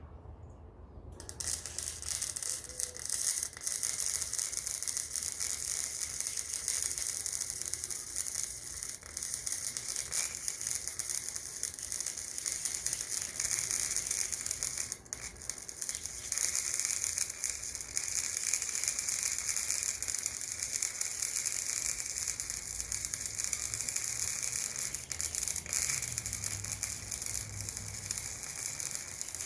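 Harbor Freight Chicago Electric MIG welder arc crackling and sizzling steadily as it lays a bead on steel channel, starting about a second in, with a brief break about halfway through. The owner finds this welder too weak to penetrate the thick channel properly.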